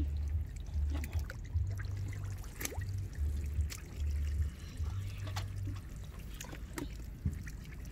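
Wet mud squelching and splashing as hands dig and scoop through mud and shallow muddy water, with trickling water and scattered short wet clicks, over an on-and-off low rumble.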